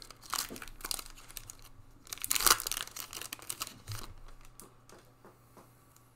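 Crinkly foil wrapper of a Panini Prizm football card pack being torn open, with the loudest tear about two and a half seconds in, then softer rustling as the cards are slid out of the wrapper, dying away near the end.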